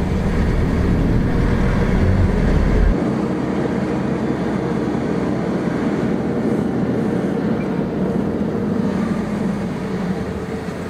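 Car engine running with road noise, heard from inside the cabin while driving slowly. A deep low rumble eases off abruptly about three seconds in.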